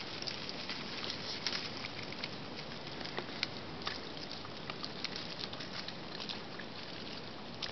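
A coati chewing on a piece of orange: irregular wet clicks and smacks, several a second, over a steady background hiss.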